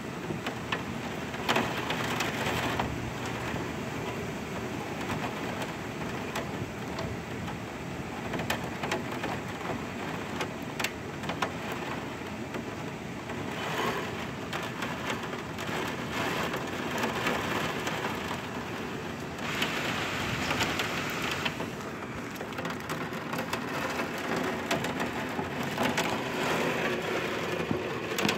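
Heavy thunderstorm rain pouring down, a steady hiss with sharp drops ticking on nearby surfaces. It swells louder twice, about two seconds in and again about twenty seconds in.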